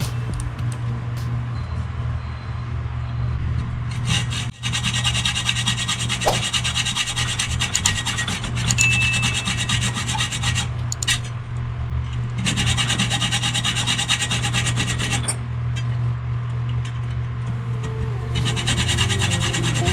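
Rapid abrasive scraping strokes, as of filing, sanding or sawing at a workpiece, in bursts of a few seconds with short pauses between, over a steady low hum.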